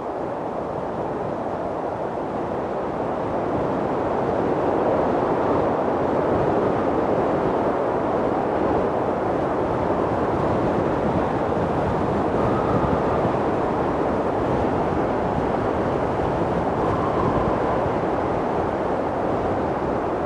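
Mountain wind blowing hard and steadily, a deep rushing noise that swells a little a few seconds in. Faint, brief whistling howls rise out of it about two-thirds of the way through and again near the end.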